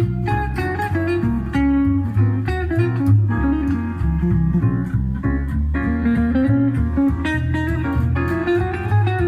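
Instrumental music with plucked guitar over a strong bass line, played back on a car audio system of Audison 2-ohm speakers driven by an Alpine DSP amplifier.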